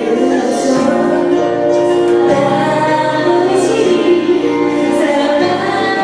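A woman singing a pop song live into a microphone, amplified through the PA, holding long notes over instrumental backing music.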